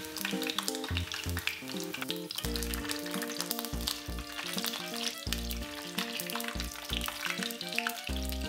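Olive oil sizzling with scattered pops around a whole green bell pepper searing in a frying pan over high heat, with background music over it.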